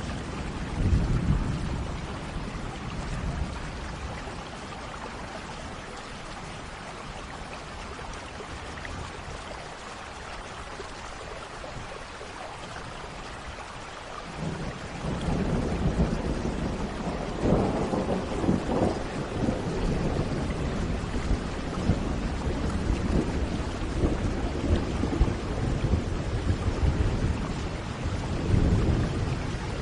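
Steady rain with thunder: a short low rumble near the start, then a long rolling peal of thunder from about halfway through that swells and ebbs to the end.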